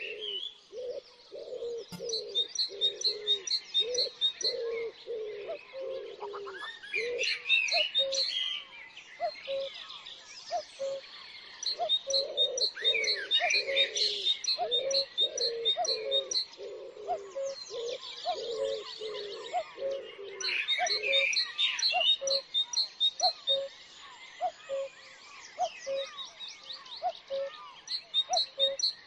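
Several garden birds chirping and singing at once, with busy high chirps and trills throughout. Underneath runs a low note repeated at a steady, quick rhythm, like cooing.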